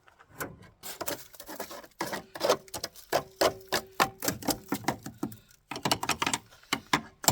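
Rapid, irregular metallic clicking and knocking from hand tools working on a car's body fasteners, with a faint steady tone underneath in the middle.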